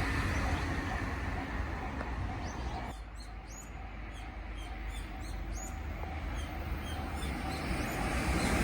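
A small songbird chirping repeatedly in short, high notes from about three seconds in, over a low rumble that fades after a train has passed.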